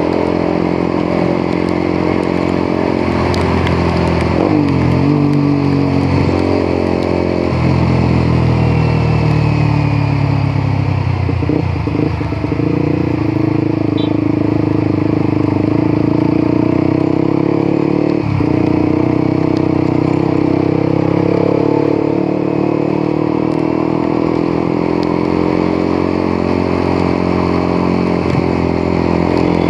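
Motorcycle engine running while being ridden, its pitch falling and rising several times as the speed changes.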